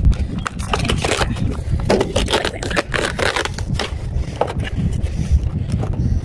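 Cardboard doll box with a clear plastic window being pried open and handled by hand: irregular crinkling, scraping and crackling of card and plastic, over a steady low rumble.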